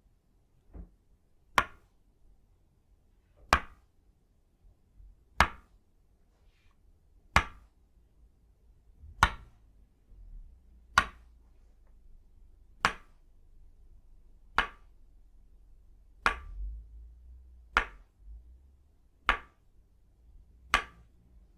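An itauba-wood Tok Sen mallet tapping a wooden wedge in a slow, steady rhythm, about one sharp wooden knock every two seconds.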